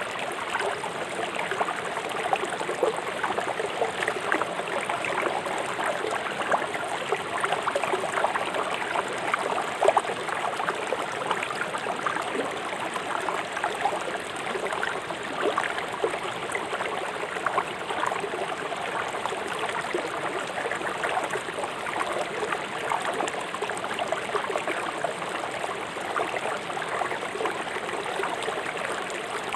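Fast-flowing river water rushing and splashing over rocks in a steady stream.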